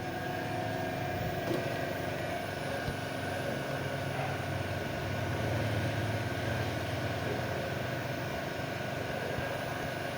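An automatic PCB soldering machine running with a steady hum and whir, a few faint steady tones running through it.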